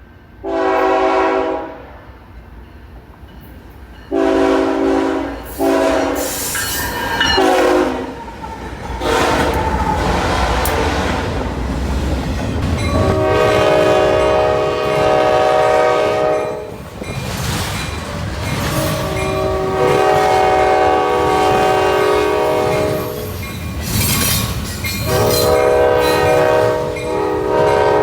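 Locomotive multi-chime air horn sounding a chord: one short blast, then a quick group of short blasts, then three long blasts. Between and under the blasts a passing train rumbles, with wheels clattering over the rail joints.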